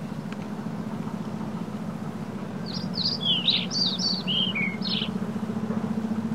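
A small songbird sings a quick run of short, high chirping notes for about two seconds midway through, over a steady low rumble of ambient noise.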